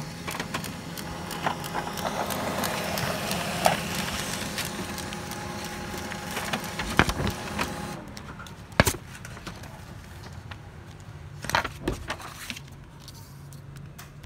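HP LaserJet Pro MFP M227fdw laser printer running a page through, a steady mechanical whir with clicks that stops about eight seconds in; this printer has a loud-running noise fault. A few sharp knocks follow.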